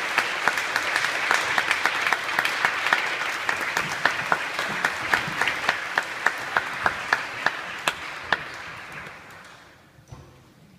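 Audience applauding, with one pair of hands clapping close by at about three claps a second; the applause dies away over the last couple of seconds.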